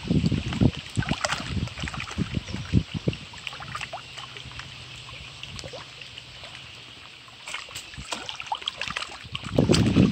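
Wind gusting across the microphone, loudest at the start and again near the end, over small waves lapping and splashing against shoreline rocks. A faint steady hum sits under the quieter middle stretch.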